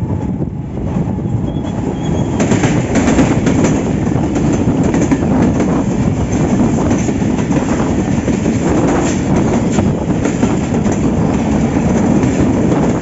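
Diesel-hauled passenger train with a PHA-20 locomotive passing close by: a steady rumble that grows louder about two seconds in as the train arrives, then coaches running past with their wheels clacking over the rail joints.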